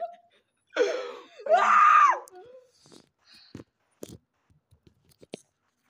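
A boy's wordless, drawn-out vocal cry, its pitch rising and then falling, about a second in. It is followed by scattered light clicks and knocks from the phone being handled.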